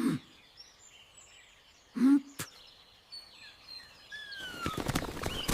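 Birds chirping in the background, with two short low voice-like sounds that fall in pitch, one at the start and a louder one about two seconds in. Over the last second a rapid patter of rustling steps builds up.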